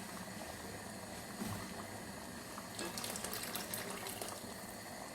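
Covered pot of rice and yellow lentils bubbling faintly on the stove after boiling water was added, a steady watery hiss with small crackles.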